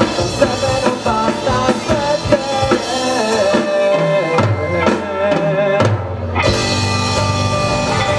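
Live rock band playing: drum kit, electric bass and electric guitars. About four seconds in, the drums and cymbals drop out for around two seconds, leaving held bass and guitar notes, then the full band comes back in.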